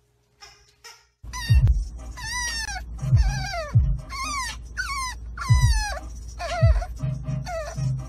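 After about a second of near quiet, a French bulldog puppy whines over and over in a string of high cries, each falling in pitch, over the low steady rumble of a car.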